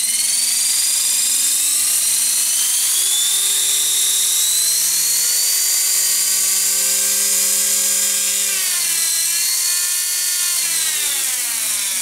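A 450-size RC helicopter's motor and drive gears whining as the rotor head spins, running on a freshly replaced swashplate that shows much less vibration. The high whine holds steady, dips in pitch about eight and a half seconds in, climbs back, then winds down near the end.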